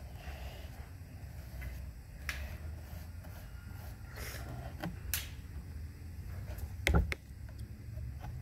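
Paintbrush and painting supplies handled at a table: scattered light clicks and taps over a steady low hum, with a louder knock about seven seconds in.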